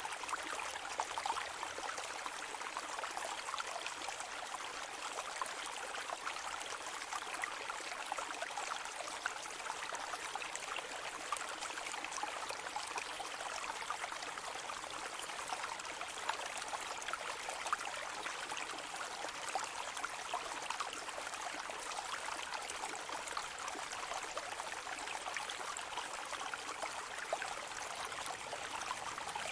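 Rain falling steadily on a lake's surface: a continuous dense patter of countless small drop splashes.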